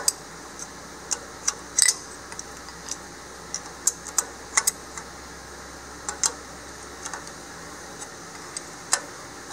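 Combination wrench clinking on a nut of a race car's rear-end housing as it is turned by hand: irregular sharp metal clicks, a few at a time, over a steady low hum.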